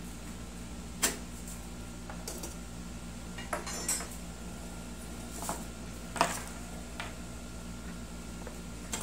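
Metal clinks and knocks from a new gas stove's stainless steel burner parts being handled and set against its glass top: about seven separate sharp clinks spread across several seconds, the loudest about a second in and about six seconds in.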